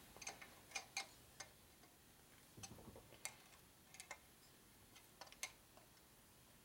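Faint, irregular light clicks and ticks of a hand wrench working the rocker oil line fittings on a Harley shovelhead engine.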